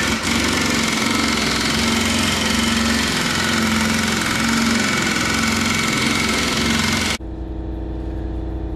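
Impact wrench hammering steadily on a puller's forcing screw, driving a seized shaft out of an Allis Chalmers B tractor housing; the shaft is only just starting to move. The hammering stops abruptly about seven seconds in, leaving a steady, quieter machine hum.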